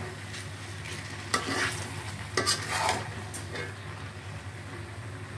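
Spatula stirring and scraping jujubes in simmering sugar syrup in a frying pan: a few scrapes against the pan over a steady low sizzle.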